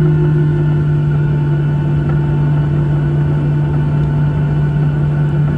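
CFM56-7B jet engines of a Boeing 737-800 running at low power, heard inside the cabin while the aircraft taxis: a steady low hum with a few fainter steady higher tones over an even rumble.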